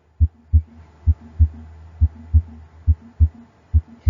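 Heart sounds heard at the aortic area at the base of the heart: steady lub-dub pairs, about five beats in four seconds. The second sound (dub) is the more intense one here and shorter and drier than the first. A steady low hum runs beneath.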